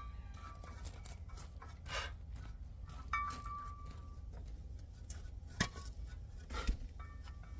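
A few separate metallic clinks and knocks of tools on brake parts, one ringing briefly, over a steady low hum.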